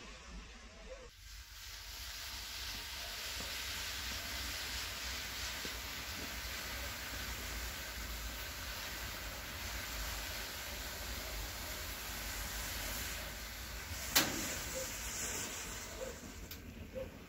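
A match volcano with sparklers inside, burning fiercely: a steady fiery hiss that builds over the first couple of seconds and holds. One sharp crack stands out about fourteen seconds in.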